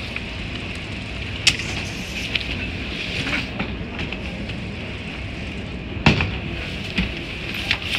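Baggage carousel running with a steady mechanical noise, broken by a few sharp knocks of suitcases being pulled off the moving plates. There is one knock about a second and a half in and several more between six and eight seconds in, the loudest about six seconds in.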